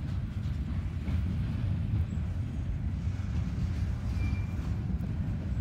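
Freight train cars rolling past, a steady low rumble of wheels on the rails.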